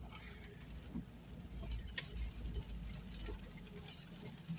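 Rain pattering on the roof and windscreen, heard from inside the car's cabin, over the low rumble of the car rolling slowly. The rumble fades about three seconds in, and there is one sharp tick about two seconds in.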